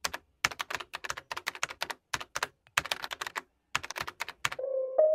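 Computer-keyboard typing sound effect: rapid key clicks in short bursts with brief pauses between them. Near the end, a light piano-like melody comes in.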